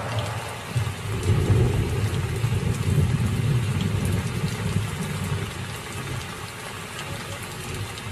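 A storm wind gusting with rain falling, under a deep rumble that is loudest from about one to five seconds in and then eases.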